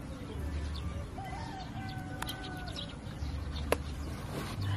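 A rooster crowing once, one drawn-out call starting about a second in. Later there are two sharp clicks.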